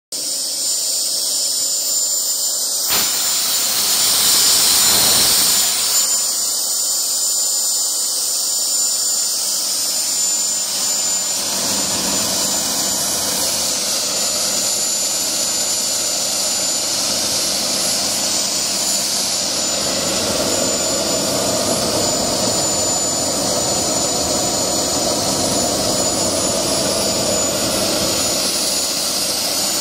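Homemade propane-fuelled gas turbine built around a large truck turbocharger, running with a steady high-pitched whine over a loud hiss. It grows louder for a few seconds about three seconds in, and a lower, fuller note builds up in the second half.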